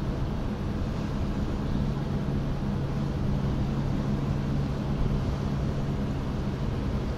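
Steady low drone of the Sakurajima car ferry's diesel engines as it passes, slightly stronger midway, over a wash of wind and water noise.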